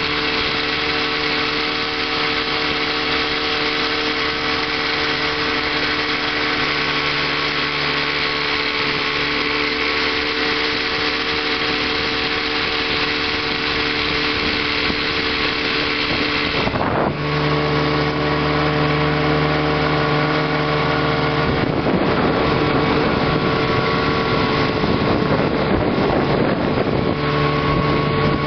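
1958 Evinrude Sportwin 10 hp outboard, a two-cylinder two-stroke of 16.6 cubic inches, running steadily under way at speed; its note shifts slightly about two-thirds of the way through.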